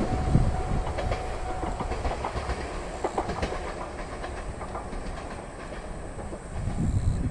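Local diesel railcar passing over a level crossing, its wheels clacking over the rail joints. The clacking thins out and fades as the train draws away, then a low rumble swells again near the end.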